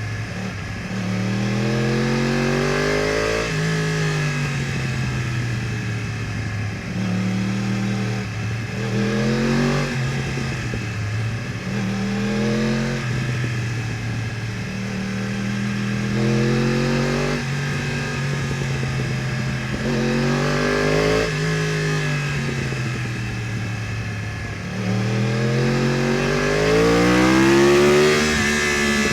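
2015 Yamaha R1 crossplane inline-four with Akrapovič headers and exhaust, heard from on the bike while riding through bends. The revs climb under throttle and drop as it backs off, again and again, with the longest, loudest pull near the end.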